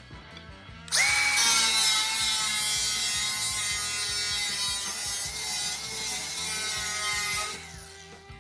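Handheld power grinder on sheet steel. It starts about a second in and runs for about six seconds with a steady high whine over a loud hiss, then spins down. Background music plays underneath.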